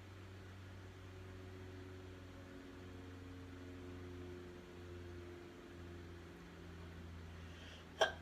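Faint steady hum, then near the end a short sharp catch of breath and a loud female sneeze bursting out.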